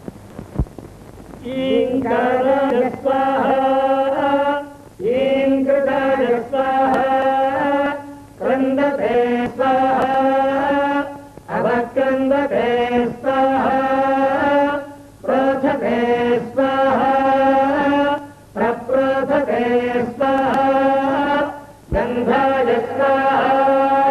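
Devotional chanting sung in long held phrases of about three seconds each, with a short break between phrases, about seven in all.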